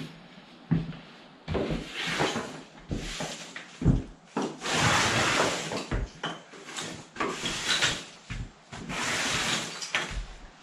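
Sawdust and wood shavings being scraped together across wooden floorboards in a run of uneven scraping strokes, the longest about halfway through.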